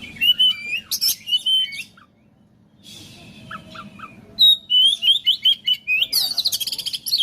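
Oriental magpie-robin (kacer) singing in two bursts of rapid whistled and chattering notes with a short pause between, the second phrase longer and ending in a fast, dense trill near the end.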